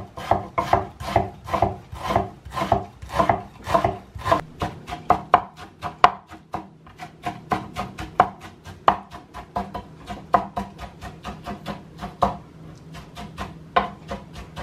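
Chef's knife chopping red onion on a wooden cutting board: a quick, steady run of blade knocks on the wood, about three to four a second, growing sparser near the end.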